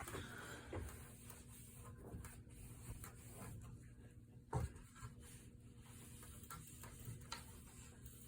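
Faint rubbing and scraping of a damp cleaning rag being wiped over a ceiling fan's base, with one knock about halfway through.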